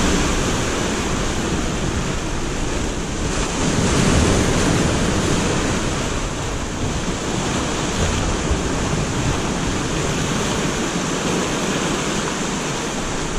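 Atlantic surf breaking and washing over the rocks below, a steady rush of surf that swells a little about four seconds in.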